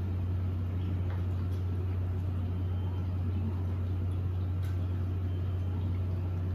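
Steady low hum in a small room, with a few faint small clicks.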